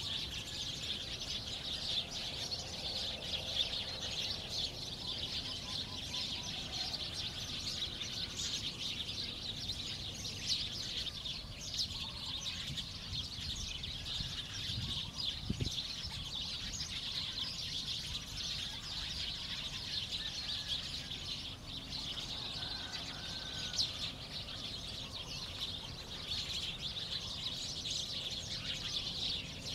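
Countryside ambience: a dense, continuous high chirping chorus of birds and insects that never lets up.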